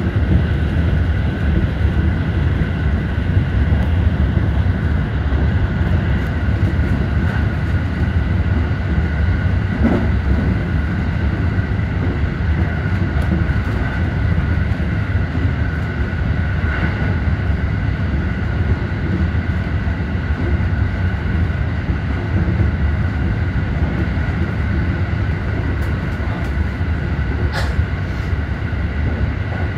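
JR Central 313 series electric train running at speed, heard inside its leading car: a steady rumble of wheels on rail with a faint steady whine, and a couple of sharp clicks.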